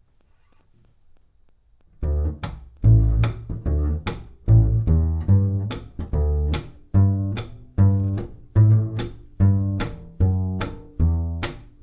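Double bass played pizzicato: a plucked bass line of evenly spaced notes, about two to three a second, each with a sharp snapping attack, starting about two seconds in after near silence.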